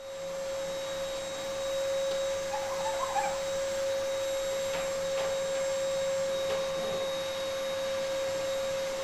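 A steady hum held on one mid-pitched note over a faint hiss, with a few faint chirps about three seconds in.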